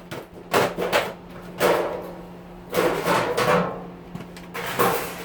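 Metal clanking and knocking in about five short bursts as parts of a sheet-metal oven are worked loose during a teardown.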